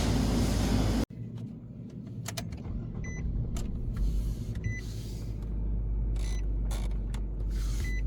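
Newly fitted blower motor of a 2015 Nissan Sentra running at high speed with air rushing from the vents, cut off abruptly about a second in. After that, a quieter low hum with scattered clicks and a short beep repeating about every one and a half seconds.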